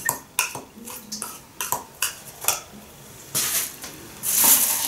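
Metal teaspoon clinking against a small glass as something is stirred in it: a string of sharp, uneven clicks over the first two and a half seconds. Packaging rustles after that, loudest near the end.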